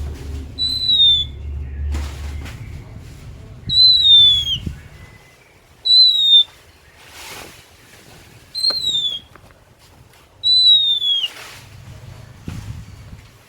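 Oriental magpie-robin (kacer) calling: a clear, high whistle that falls in pitch, repeated five times at intervals of about two seconds, each note about half a second long. Soft rustles come between the notes, and a low hum fades out about five seconds in.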